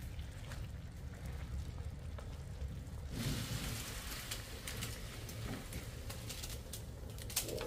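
Hot chicken in a frying pan sizzling with a steady hiss, which grows louder about three seconds in, with a few clicks near the end.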